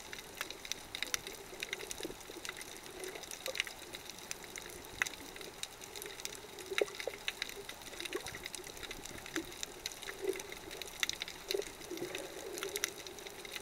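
Underwater ambience over a coral reef, recorded with the microphone submerged: a muffled, steady watery hum with many scattered, irregular sharp clicks and crackles.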